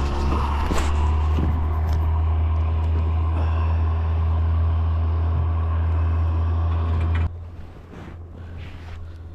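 Boat motor running at a steady low hum, then cut back or shut off abruptly about seven seconds in, leaving a fainter hum.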